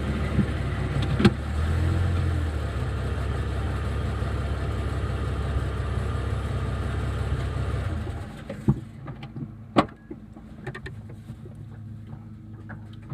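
Jeep running down the road, heard from inside the cabin as a steady low engine and road rumble. About two-thirds of the way through the rumble drops away, leaving a low hum and a few scattered sharp clicks and knocks.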